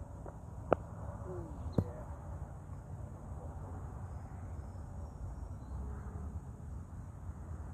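A cricket ball from a leg-spin delivery, making two sharp knocks about a second apart as it pitches on the artificial-turf surface and then strikes something at the batting end. A steady low background noise runs underneath.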